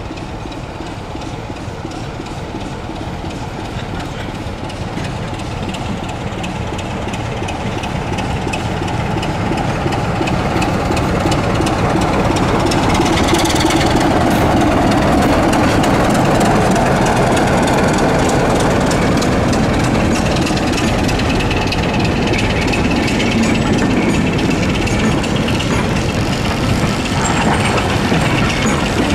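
Diesel locomotive's engine running as it approaches and passes at low speed, getting steadily louder to a peak about halfway through, then its coaches rolling past with wheels clicking over the rail joints.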